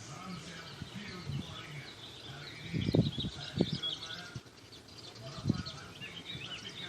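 Broiler chickens cheeping in a steady chorus of many short calls, with three dull knocks around the middle.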